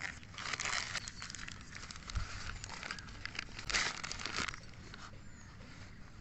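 Paper wrapping crinkling and rustling as it is pulled off a miniature terracotta clay pot piece, in two bursts about a second in and near four seconds, with a soft thump in between.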